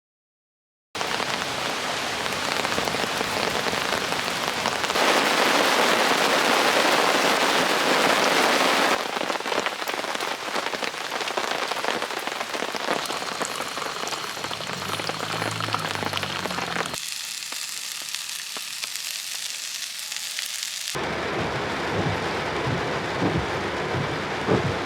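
Steady heavy rain falling, starting abruptly about a second in. It changes in strength and tone every few seconds, as separate takes cut together, and near the end there are low thuds of heavier drops.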